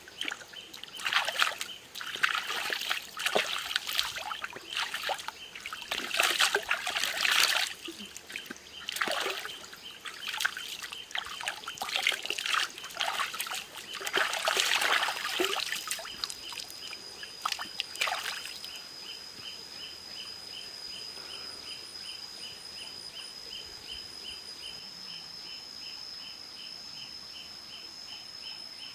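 Shallow stream water splashing and trickling as it is scooped up in cupped hands and poured over the face and legs, in irregular splashes. From about 18 seconds in the splashing stops, leaving a steady high whine and a fast, even pulsing chirp.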